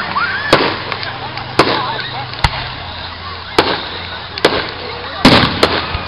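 Aerial fireworks exploding: about eight sharp bangs, roughly one a second, the loudest coming in a quick cluster near the end.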